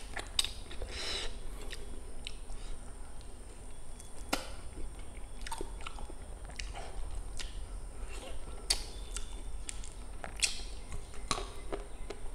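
Chewing and biting on a chicken leg piece in gravy, eaten by hand, with irregular sharp mouth clicks and smacks.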